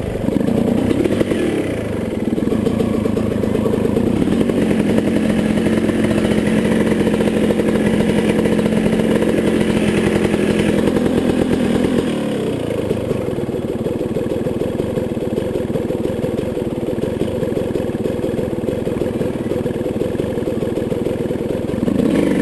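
Dirt bike engine running continuously as it rides a trail, heard from on the bike itself; the engine note changes about halfway through.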